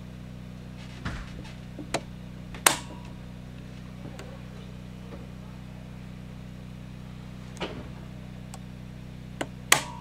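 Rocker switches on a Reliance Pro/Tran generator transfer switch clicking over from line to generator power, putting house circuits onto the generator. There are several clicks, with two loud snaps about three seconds in and just before the end, over a steady low hum.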